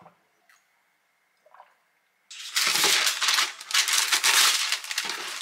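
A sheet of baking paper pulled from its roll and crumpled, a loud crackly rustling that starts about two seconds in and lasts about three seconds. A few faint taps come before it.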